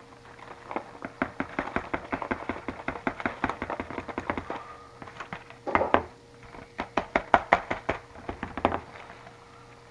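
Dry pancake mix being shaken out of its cardboard box and paper liner into a plastic mixing bowl: quick rattling taps, several a second, in two runs, with a denser rustle about six seconds in.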